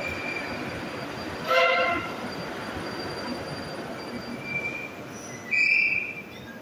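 Moskva-2019 metro train coming to a stop at a platform: a high steady whine dies away at the start. About a second and a half in, a short, loud horn-like tone sounds. Near the end a high electronic beep comes just before the doors open.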